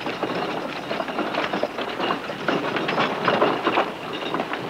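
Galloping horses' hoofbeats and a horse-drawn wagon rattling along at speed: a fast, dense clatter.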